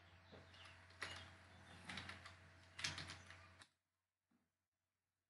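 Faint computer keyboard keystrokes, a handful of separate clicks over a low steady hum, cutting off abruptly to dead silence about three and a half seconds in.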